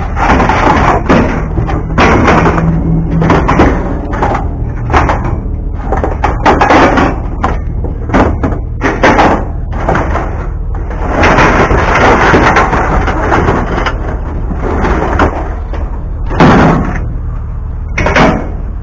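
Scrap metal being shifted and stacked in a pickup truck bed: steel frame pieces and sheet metal clanking, banging and rattling against each other in a long run of irregular knocks, with a steady low hum underneath.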